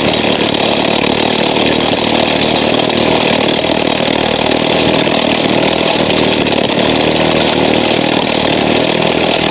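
Power tool working on rock, running steadily at full power without a break, cracking the stone.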